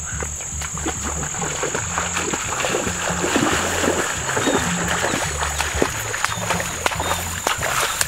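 Background music with a steady low beat and a steady high tone, under the crackling and swishing of tall grass being pushed through and trampled, busiest from about two seconds in.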